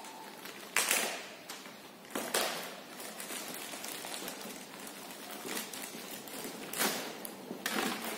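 Scattered knocks and clatter from tools and parts being handled during suspension work, with sharp ones about a second in, after two seconds and near the end, over a low rustling.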